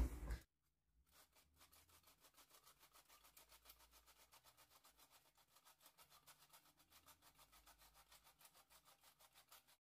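Near silence: the sound is all but cut out, leaving only a very faint, evenly repeating texture.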